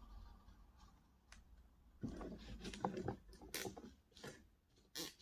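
Releasable plastic cable tie being fitted to a chalk line reel by gloved hands: quiet at first, then rustling handling noise with a few sharp plastic clicks from about two seconds in.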